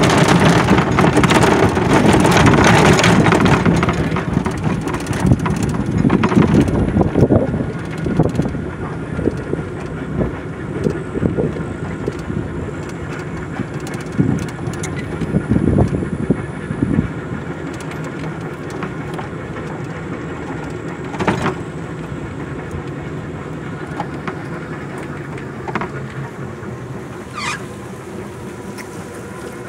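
Electric Jeep kit car driving slowly off-road: wind noise on the microphone and tyres on gravel, with scattered knocks over bumps. It grows quieter after the first few seconds as it rolls onto a leaf-covered track.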